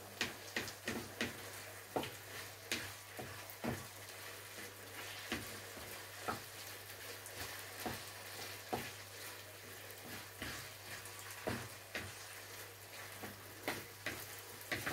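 Minced beef chilli and rice frying in a pan with a steady sizzle, while a wooden spatula stirs it with irregular scrapes and knocks against the pan.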